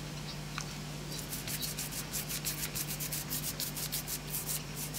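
A small cheap paint roller worked quickly back and forth, spreading epoxy resin over a carbon-fibre sheet: a rapid run of rubbing strokes, several a second, starting about a second in. A steady low hum sits underneath.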